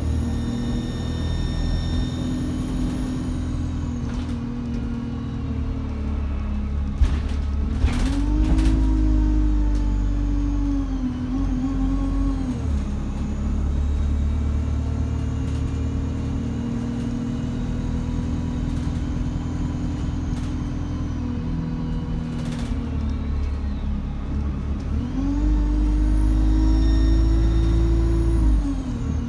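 Diesel bus engine pulling away and easing off several times, with a high turbo whistle rising and falling in pitch along with it. Brief sharp hisses cut in about seven to eight seconds in and again past twenty-two seconds.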